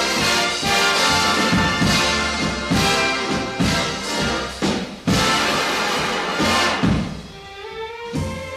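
Background music: an orchestral big-band instrumental break with brass and a steady beat, growing softer near the end.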